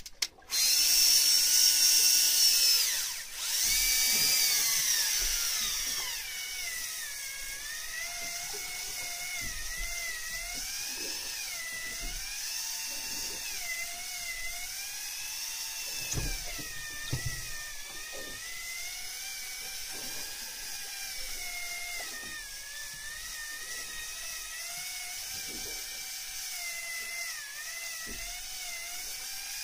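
Electric fishing reel's motor whining as it winds in line under load. It starts loud and high just after the start, slides down in pitch over the next few seconds, then runs on more quietly with a whine that wavers up and down in pitch.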